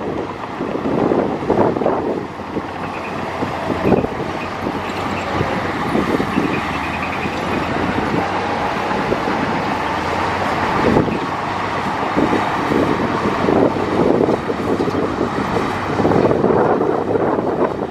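Heavy diesel earth-moving machinery running steadily under load, with a few sharp knocks and a faint whine that rises and falls in the middle.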